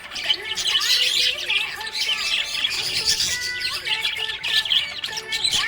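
Several budgerigars chirping and warbling together in a busy, overlapping chatter of short high chirps.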